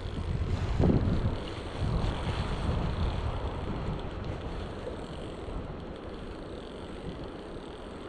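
Wind buffeting the microphone in gusts, strongest in the first three seconds, over a steady rushing of mountain stream water.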